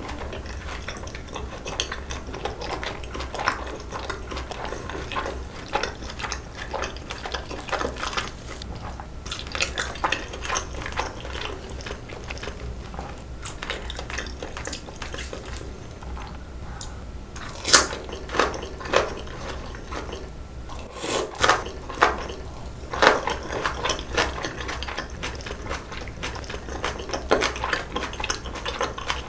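Close-miked eating sounds: wet chewing, lip smacks and slurps of sauce-coated noodles and side dishes. A run of louder, sharper smacks and slurps comes past the middle.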